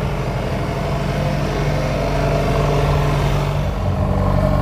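Diesel engine of a JCB backhoe loader running steadily with a low drone, its note shifting a little near the end.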